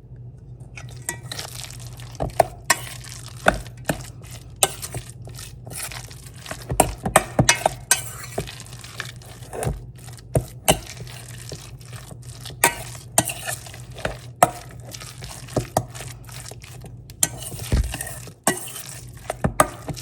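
Ground chicken burger mixture being stirred and mixed in a bowl: irregular clinks and knocks of a utensil against the bowl, over a steady low hum.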